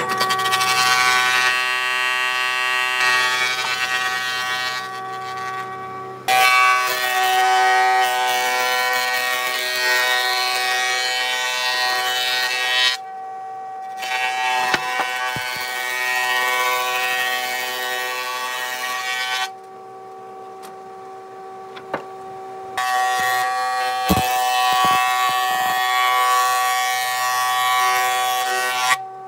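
Industrial thickness planer running with a steady whine while its cutterhead planes a thick wooden board, giving long stretches of loud cutting noise. The cutting stops twice, briefly and then for a few seconds, while the machine keeps running.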